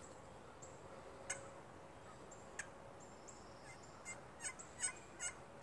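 Pocket slate turkey call, scratched with a striker: two sharp single notes, then a quick run of about five turkey yelps near the end.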